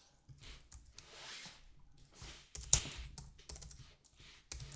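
Typing on a computer keyboard: a string of quiet, irregular key clicks with short pauses between them.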